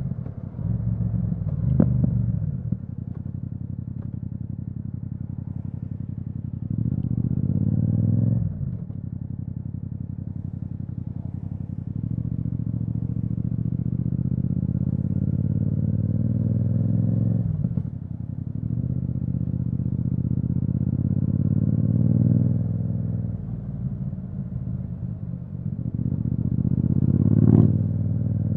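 Yamaha MT-07's parallel-twin engine running through an Akrapovic exhaust while riding at town speed: several gentle pulls, each rising in pitch and then cut off at a gear change or roll-off. There are short sharp cracks about two seconds in and near the end.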